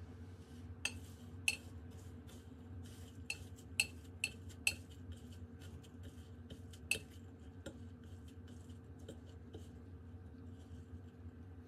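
Metal fork clinking and scraping against the coating trays, several sharp clinks over the first seven seconds, with the soft rustle of a croquette being rolled in breadcrumbs.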